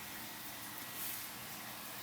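Faint steady hiss, with a brief soft rustle about a second in.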